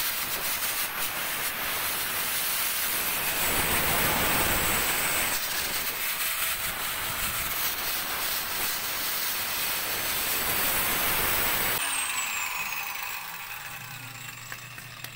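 Electric angle grinder with a cutting disc running at full speed, cutting blue PVC pipe with a loud hiss. It is switched off about twelve seconds in and winds down with a falling whine.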